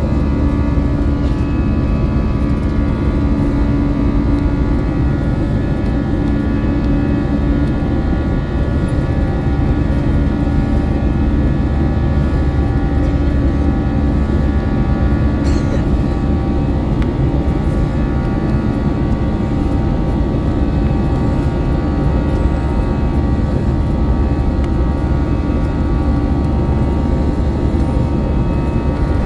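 Steady, loud jet engine noise heard from inside the cabin of an Airbus A321-200: a constant low rumble with several steady whining fan tones over it.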